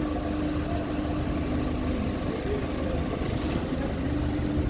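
Engine of a water-well drilling rig running steadily: a constant low rumble with a held hum.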